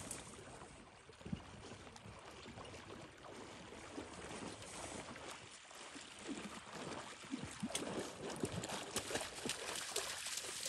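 Water sloshing and splashing as a dog swims back across a pond carrying a shot duck, growing louder from about halfway as it reaches the shallows and wades out.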